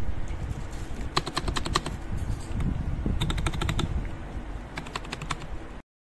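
Keys of a mechanical keyboard being pressed in three quick runs of clacking keystrokes, over a steady low rumble. The sound cuts off suddenly near the end.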